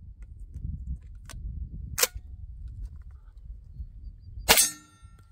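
A light click and then a sharp metallic clack as the Beretta 1301 Tactical semi-automatic shotgun is readied. Near the end comes a single 12-gauge shot, the loudest sound, with a brief ring after it.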